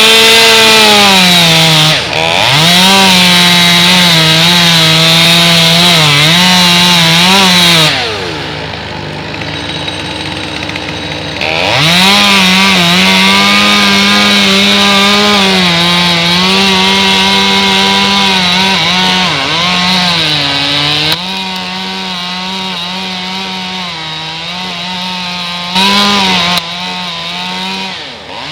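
Two-stroke chainsaw running at high revs while cutting wood, its pitch dipping and recovering again and again as the chain bites. The saw drops back for a few seconds about 8 s in, then runs high again, and is quieter for the last part.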